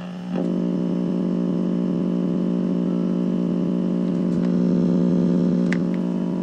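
Steady electrical hum-buzz from a tube radio on the bench during sweep alignment of its FM IF stages, a strong low tone with a stack of even overtones. It steps up in level about a third of a second in, and a few faint clicks sound over it.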